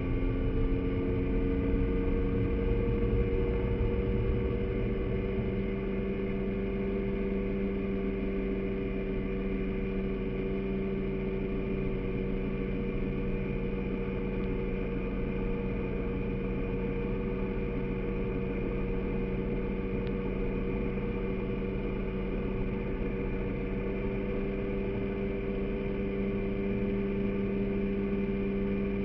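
Outboard motor running steadily at cruising speed on a moving boat. Its hum rises a little in pitch in the first few seconds, then holds even, over a constant low rushing noise.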